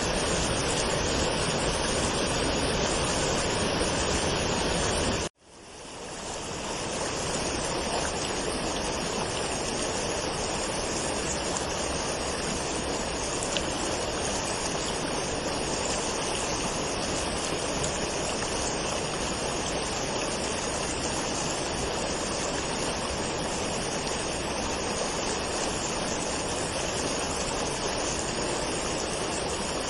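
Steady rushing water of a waterfall. About five seconds in it cuts out abruptly and fades back in over a couple of seconds.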